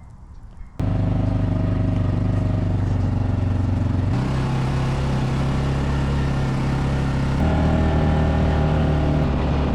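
A motor engine starts abruptly and runs steadily under load. Its pitch steps up about four seconds in and again about seven seconds in.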